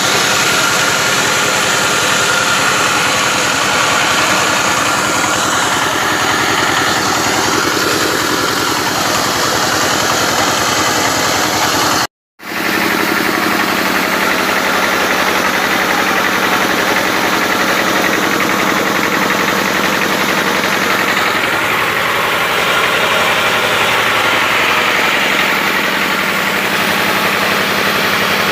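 A motor or engine-driven machine running steadily. It cuts out for a moment about twelve seconds in, then runs on.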